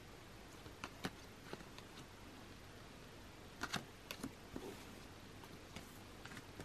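Faint taps, clicks and rustles of glossy photo cards being shuffled and set down by hand. The sharpest clicks come about a second in and in a short cluster near four seconds in.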